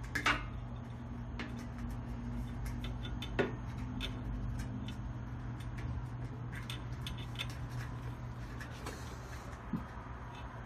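Faint scattered clicks and rustles of cables and their connectors being handled and pushed through a hole in the scanner's inner chassis, over a steady low hum; a sharper click comes about three and a half seconds in.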